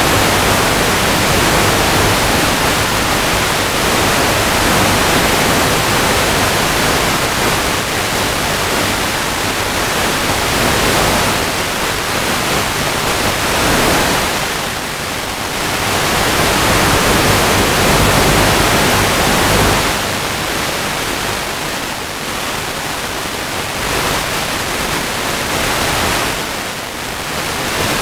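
Steady static hiss from an analog FPV video receiver's audio channel, easing and swelling in strength now and then.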